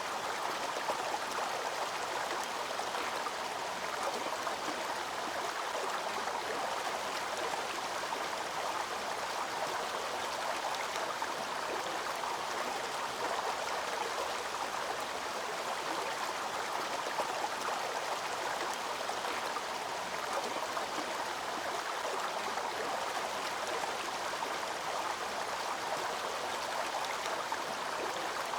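Waterfall and its stream rushing in a steady, unbroken wash of water noise.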